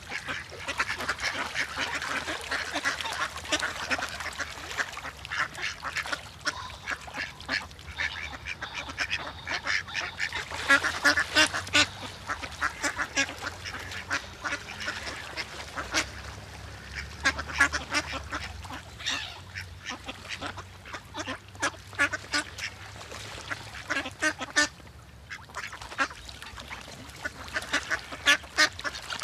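A flock of birds calling: many short, overlapping calls come in busy bouts, with a few brief lulls between them.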